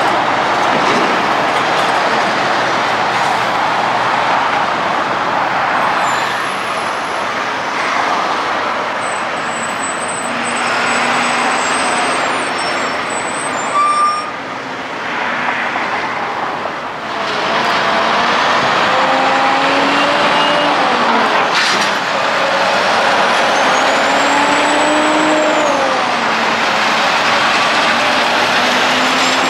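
Busy road traffic with semi-trucks passing: diesel engines and tyre noise. In the second half a truck engine pulls away, its pitch rising and dropping back twice as it shifts up through the gears.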